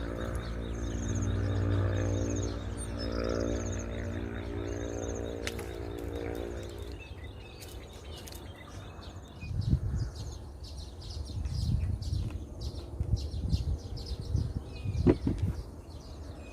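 Small birds chirping in short repeated phrases over a steady low drone, which fades out about seven seconds in; after that, irregular low thumps and rustles with a few sharp clicks.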